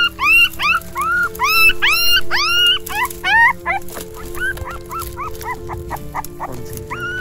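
Puppy whimpering and yelping in a quick run of short, high cries that each rise and fall. The cries are loudest in the first three seconds, fainter after, with one louder cry near the end. Background music of held notes plays under them.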